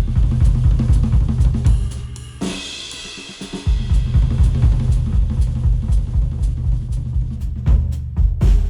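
Instrumental music with a full drum kit (kick, snare, hi-hat, cymbals) over a heavy bass line, played back through a HIFIMAN headphone and picked up by microphones on it. The bass and kick drop out from about two and a half seconds in, then the full beat comes back a second later.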